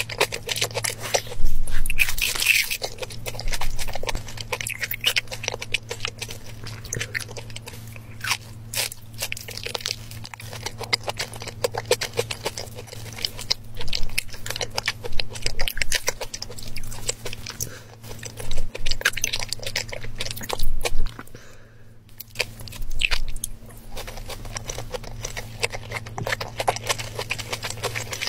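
Close-miked chewing of raw tuna, with dense short mouth clicks and smacks over a steady low hum. There is a brief lull about 22 seconds in.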